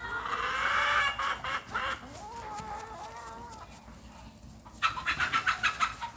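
Chickens clucking and squawking. A long wavering call comes in the middle, and a quick run of clucks near the end.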